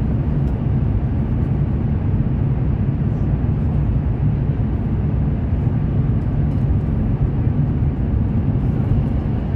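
Steady low rumble of a Fuxing CR400BF-Z high-speed train running at speed, with a few faint ticks above it.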